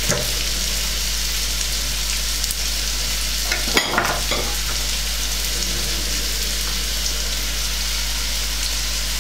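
Grated carrot and onion sizzling steadily in oil in a frying pan, with a few sharp knocks about four seconds in as a kitchen knife is set down on the counter.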